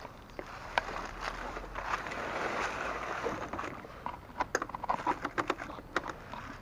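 A rustling hiss for the first few seconds, then a run of light clicks and knocks as a motorcycle's ignition key and controls are handled; the engine is not yet running.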